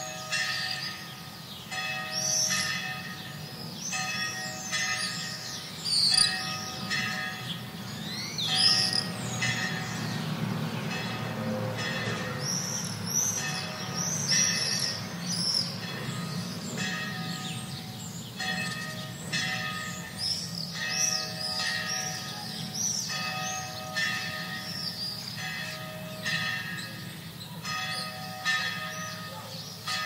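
A mid-distant bell tolling steadily, about one stroke every two seconds, over the screaming calls of swifts. A low traffic rumble swells and fades around the middle.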